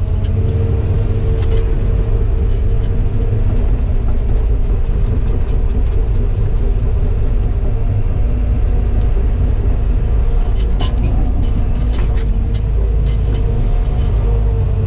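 Diesel engine of Cat heavy equipment running steadily under load, with a deep hum. Scattered sharp clicks and knocks, the thickest cluster about ten to thirteen seconds in.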